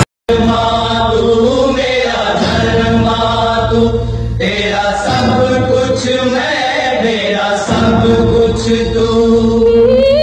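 Hindi film song: voices singing long, drawn-out notes in chorus, chant-like, over a steady low drone. The sound cuts out for a moment at the very start.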